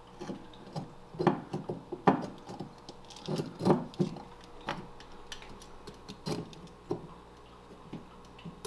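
Porous aquascaping rock knocking and grating against the rocks beneath it as it is pushed and wedged into place by hand: about a dozen short, irregular clacks and scrapes, thinning out near the end.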